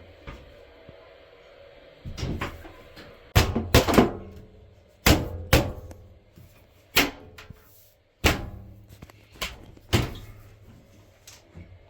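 Irregular knocks and thumps, about a dozen, as a washing machine's front plate is fitted, its top clips hooked and then pushed down and pressed into place.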